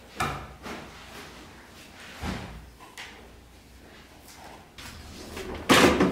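Curtains and a curtain rod being taken down from a window: a few scattered knocks and clacks of the rod and its fittings, then a louder burst of clattering near the end.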